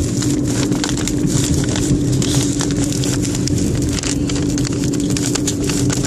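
A mailed package crinkling and rustling with many small crackles as it is opened, over the steady hum of a car.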